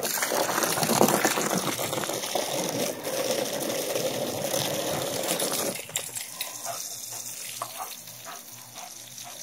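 Garden hose spraying water, a loud steady rush of water that drops to a quieter spatter about six seconds in.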